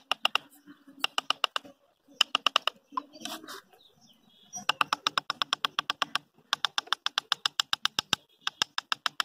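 Rapid runs of sharp, ringing taps on bamboo, about nine a second, each run lasting a second or so with short pauses between: bamboo being worked by hand with a tool.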